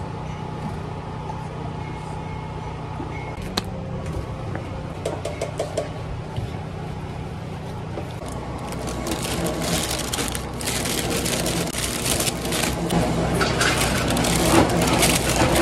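A steady low hum, with a click and a few light knocks early in the first half; from about halfway, crinkling and rustling of a thin plastic carry bag being handled, growing louder toward the end.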